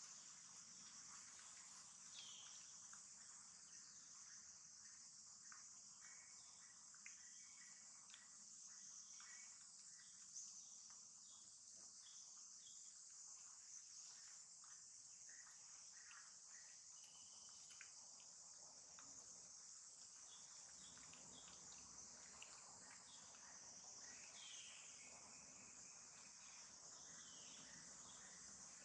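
Faint, steady high-pitched chorus of insects such as crickets or cicadas, with a few short faint chirps over it.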